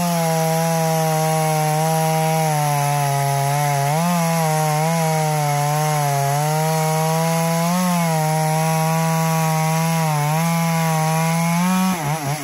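Stihl MS 250 two-stroke chainsaw cutting through a seasoned yellow locust log at full throttle, the engine note sagging under load and picking back up about every four seconds. Right at the end the throttle is let off and the engine speed drops away.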